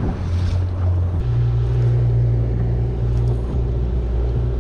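Boat engine running steadily, its pitch stepping up about a second in as it revs higher, then holding there.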